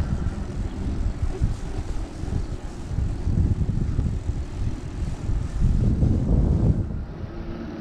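Wind buffeting the microphone of a camera riding along on an e-bike: an uneven, gusting low rumble.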